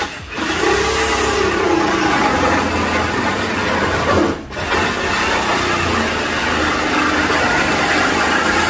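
Corded drill running a hole saw through the sheet-metal front fender of a Lexus LX470: a loud, steady grinding whir that stops briefly about four and a half seconds in, then starts again.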